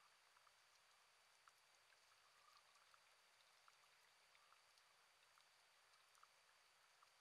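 Near silence underwater: a faint steady hiss dotted with scattered tiny clicks, the faint crackle of a coral reef.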